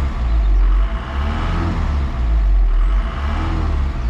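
Tata Xenon pickup's diesel engine idling on its first cold start after about eight months standing: a steady low running sound that swells and eases slightly every second and a half or so.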